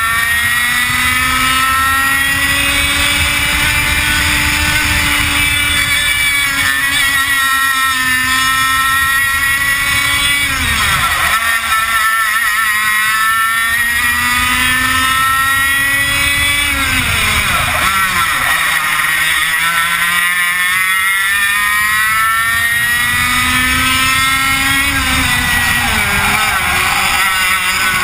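100cc two-stroke kart engine racing at full throttle, heard on board: its high note climbs steadily along the straights and falls sharply three times as the kart slows for corners, then winds up again.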